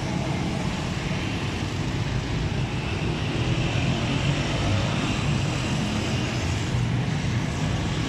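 A motor engine running steadily at a low, even rumble, with no change in speed.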